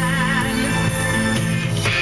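A pop song with singing and guitar. A singer holds a note with vibrato that fades out about half a second in, over a steady bass line.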